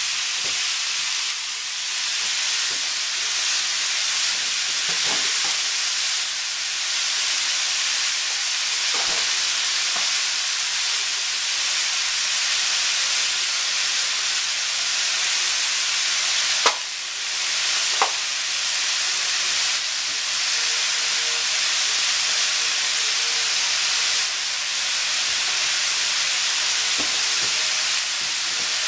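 Veal shanks and chopped vegetables sizzling in oil in a stainless-steel sauté pan: a steady hiss, broken by two sharp clicks a little over halfway through.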